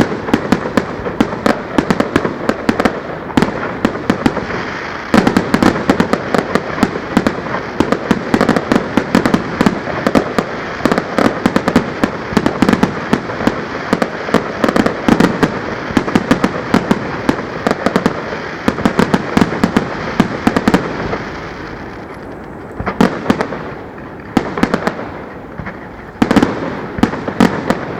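Fireworks display heard at close range: a dense, rapid barrage of bangs that thins out after about twenty seconds into separate clusters of bursts.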